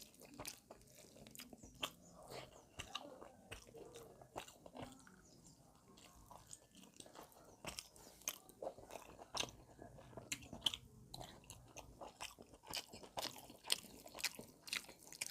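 Close-miked eating of chicken biryani: chewing and biting with many short wet clicks and smacks, coming thicker in the last few seconds.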